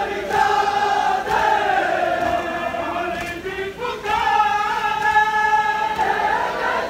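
Large crowd of men chanting a mourning lament (noha) in unison, with long held notes that slide slowly in pitch and a brief break about three and a half seconds in.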